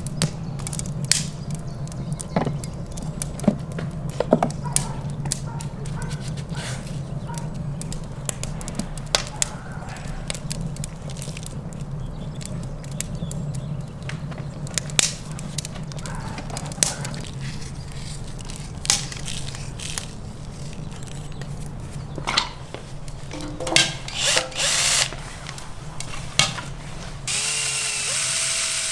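Scattered knocks and clicks of a knife and raw rib steaks being handled on a wooden cutting board, over a steady low hum. Near the end a cordless drill starts up, its louder motor whirr drilling into the raw meat.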